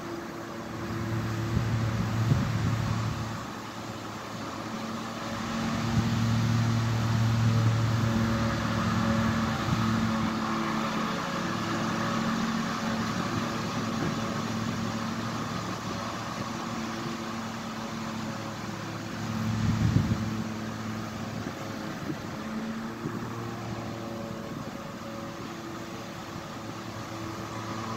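A motor running with a steady low hum. It swells louder about two seconds in, again from about five to ten seconds, and briefly around twenty seconds.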